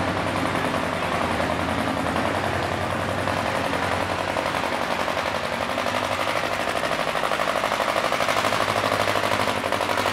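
Two-cylinder John Deere classic pulling tractor's engine working hard under load as it drags a weight-transfer sled, its exhaust firing in a rapid, even beat that grows a little louder in the second half.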